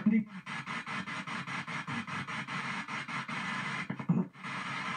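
P-SB7 ghost box sweeping down the FM band at 200 ms per step, giving a fast, even chopping of radio static and snatches of broadcast sound. There is a short break with a brief low burst about four seconds in.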